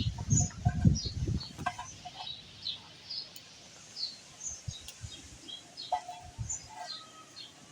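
Small birds chirping in short, high, repeated notes, with a few loud low thumps in the first second and a half.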